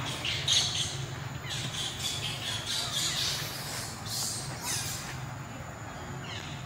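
A young macaque's shrill, hoarse squealing cries, about five in a row, some falling in pitch, over a steady low hum.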